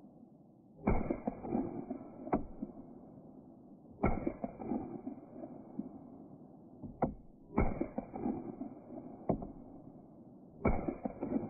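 Savage A22 .22 rimfire semi-automatic rifle fired four times, about three seconds apart. Each shot is followed by a ragged echo lasting about a second, and a few single sharp cracks fall in between.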